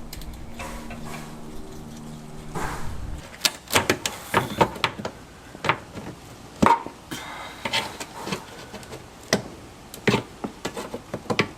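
A low steady hum for the first three seconds or so, then a run of irregular sharp clicks and knocks, a few ringing briefly: a screwdriver working push pins out of a car's metal bumper trim.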